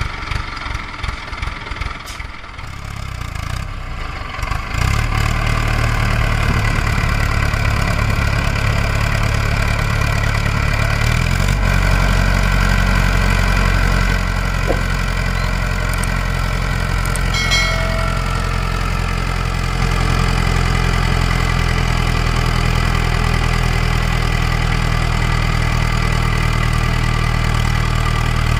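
Mahindra tractor's diesel engine idling with an even low pulse, then revving up about five seconds in and running hard and steady under load as the tractor, wheels sunk in sand, tries to pull its loaded trailer free.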